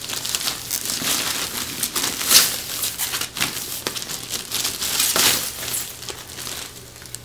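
Thin plastic bag crinkling and rustling as a motorcycle helmet is worked out of it, in irregular handfuls of crackle, loudest about two and a half seconds in and again about five seconds in, dying away near the end.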